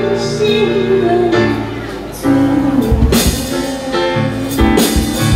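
A woman singing live through a handheld microphone over amplified instrumental accompaniment, holding long notes; drum hits come in about three seconds in.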